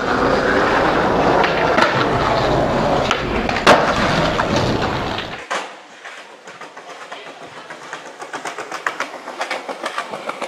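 Skateboard wheels rolling over concrete: a loud rumble with one sharp knock partway through, cutting off suddenly about five seconds in, then quieter rolling with a run of clicks that come quicker toward the end.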